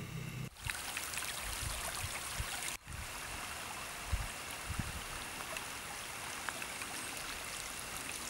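Muddy rainwater running and splashing in a steady rush across a wet asphalt road in the rain. The sound drops out briefly twice.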